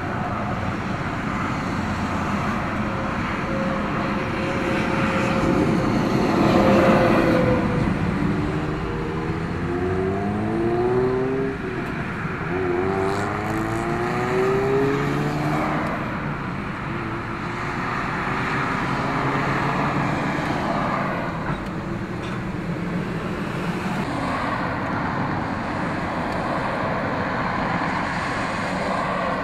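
Road traffic: cars and trucks passing with steady tyre and engine noise. About 8 to 16 seconds in, a vehicle's engine note rises and falls several times.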